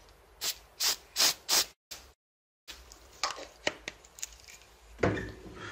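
Four quick hissing spray squirts in a row within about a second, sprayed onto freshly applied glue to help it dry, followed by a few light clicks.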